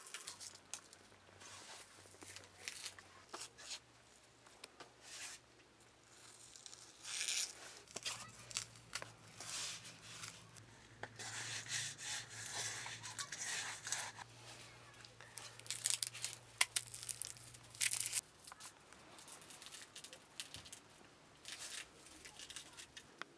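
Dry onion skin crackling and tearing as a red onion is peeled and trimmed with a small knife, in irregular scratchy scrapes with small clicks.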